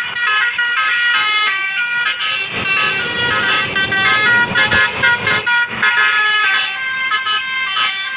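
Basuri telolet multi-tone bus horn with roof-mounted trumpets, playing a fast melody of many short notes that change in quick steps.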